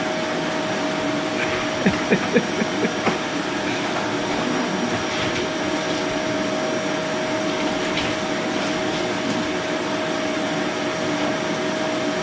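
Vacuum cleaner running steadily with a constant whine. About two seconds in comes a quick run of about six short thumps over a second or so.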